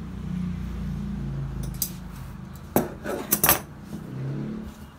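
Metal shears being set down on a cutting table: a few sharp metallic clinks and knocks, clustered between about two and three and a half seconds in, over a low rumble in the first half.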